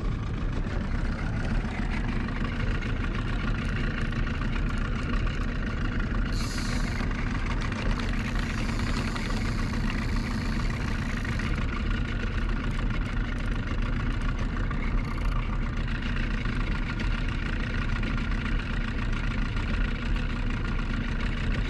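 Boat's outboard motor running steadily at slow trolling speed, heard from on board. A higher hiss comes and goes between about six and twelve seconds in.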